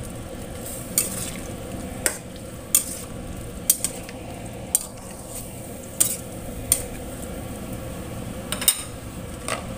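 Spatula stirring chunks of chicken, potato and carrot in simmering coconut-milk broth in a large metal wok, knocking and scraping against the metal about once a second over the steady sizzle of the simmering pot.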